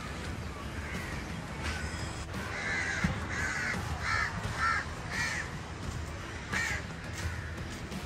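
A crow cawing about six times, five harsh caws in quick succession and then one more after a short pause.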